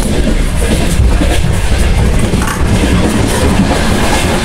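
Passenger train running at speed, heard from inside the carriage: a loud, steady rumble of the wheels on the track.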